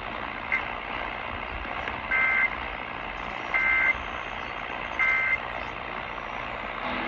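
Electronic weather alert beeps: a short blip, then three beeps of about a third of a second each, roughly a second and a half apart, over a steady hiss.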